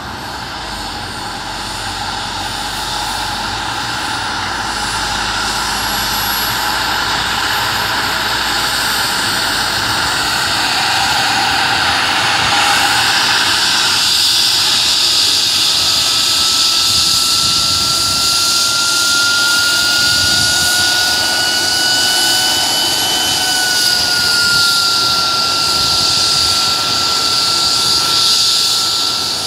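Twin-turbine MD 902 Explorer air ambulance helicopter running up on the ground. The sound grows louder over the first dozen seconds and then holds steady. A high turbine whine climbs slowly, and a clear tone comes in about halfway and rises gently.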